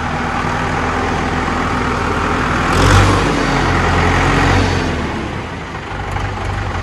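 Hindustan 60 tractor's four-cylinder diesel engine running, louder about three seconds in as it is revved, then easing back.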